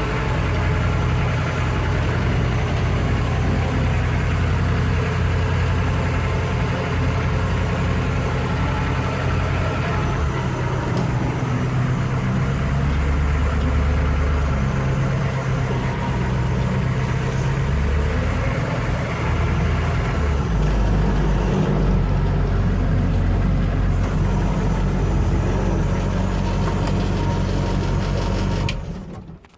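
Humvee's diesel V8 running under load while driving through tall grass, its low note shifting in pitch with the throttle, then cutting off sharply near the end.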